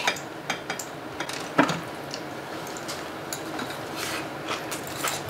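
Table sounds of a meal: a few light clicks and taps of chopsticks and spoons against bowls and plates, the loudest about one and a half seconds in, over soft eating noise.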